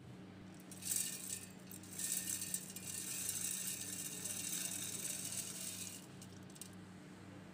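Dry rolled oats poured into an empty stainless steel mixer-grinder jar, the flakes hitting the metal bottom and sides; the pour stops about six seconds in, with a few last flakes falling just after.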